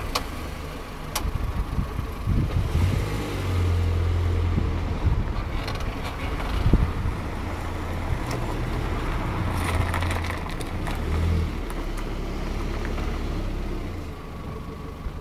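2002 Ford Fiesta 1.4 Zetec running, with a continuous low rumble that swells twice and a few scattered clicks.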